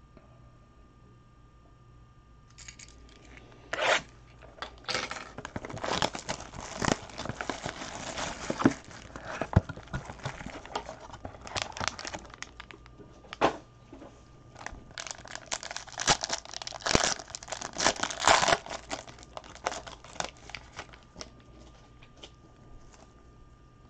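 Plastic wrapping and a sealed trading-card pack being torn open and crinkled by hand, with a few sharp clicks from the cardboard box. It starts a couple of seconds in and comes in irregular bursts, dying away near the end.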